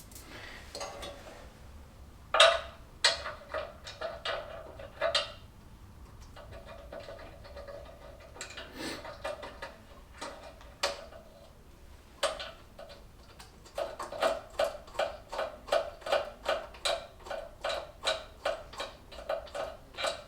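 Bolts being run into the sheet-metal cooling tinware of a Fiat 500 F 499cc engine: scattered metallic clicks and taps, then from about halfway a regular clicking at roughly two a second with a slight ring, as a bolt is wound in without being tightened.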